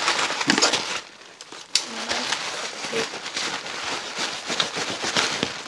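Rustling and crinkling of packaging being handled as a box is opened, with many small clicks and scrapes and a brief lull about a second in.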